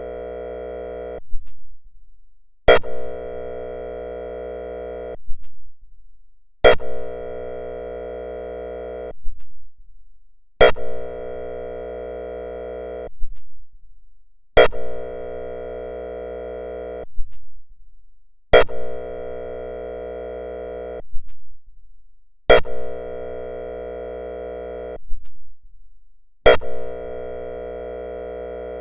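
Whelen ESC-864 electronic airhorn signal sounding in repeated blasts. Each blast is a steady, many-toned horn note about two and a half seconds long that starts abruptly, and one comes about every four seconds. A short blip follows just after each blast cuts off.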